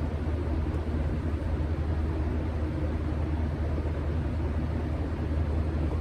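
Steady low rumble with an even background hiss, unchanging throughout, such as a running vehicle or other machinery heard from inside.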